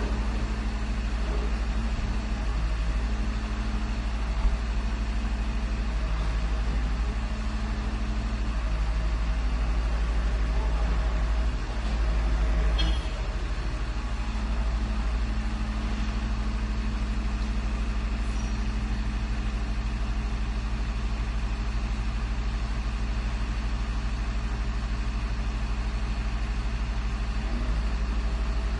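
Garbage truck engine running steadily at idle, a low even drone. It swells briefly about halfway through, with a short high-pitched streak of sound.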